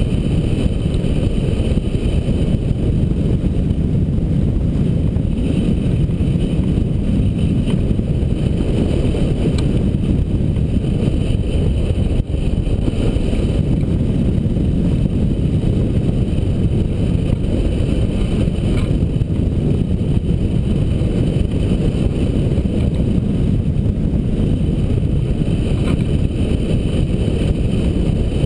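Airflow of a hang glider in flight rushing over the glider-mounted camera's microphone: a loud, steady wind roar, heaviest in the low end.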